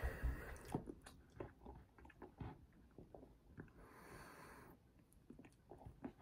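Thick strawberry milkshake sucked up through a straw, with faint close mouth noises. There are two slurps, one at the start and one about four seconds in, each about a second long, with small lip and tongue clicks and swallows between them.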